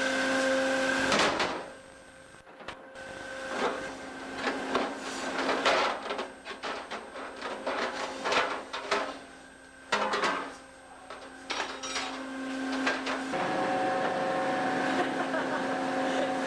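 Fish-processing machinery on a factory fishing boat running with a steady hum, over irregular clanks and clatter of metal pans and fish being handled. The hum drops away briefly twice.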